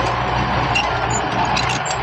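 Heavy diesel earthmoving machinery running steadily, a constant low engine hum under a broad mechanical noise, with a few faint metallic clinks.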